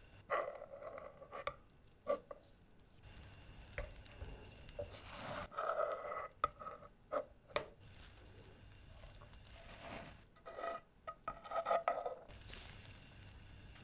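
A metal spatula scrapes and clicks against steel ring molds in a frying pan as soufflé pancakes are loosened and flipped. The scrapes and knocks come irregularly, with short metallic rings.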